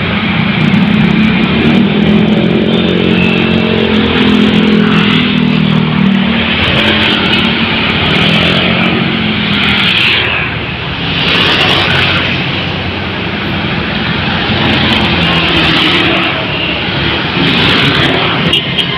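Road traffic passing close by: a heavy vehicle's engine drone shifts in pitch through the first half, over steady tyre and traffic noise.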